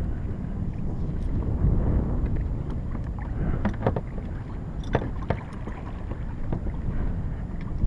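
Water sloshing against a kayak hull on open sea, with wind buffeting the microphone and a few short knocks about three and a half and five seconds in.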